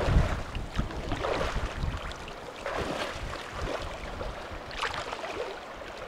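Choppy sea waves washing and splashing against shore rocks, with wind buffeting the microphone; the low wind rumble is strongest in the first half-second.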